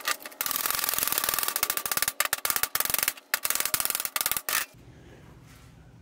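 Hand wire brush scrubbed hard across a fresh stick-weld bead on steel, knocking off slag and flux. Rapid scratchy strokes run for about four seconds with a few short breaks, then stop abruptly.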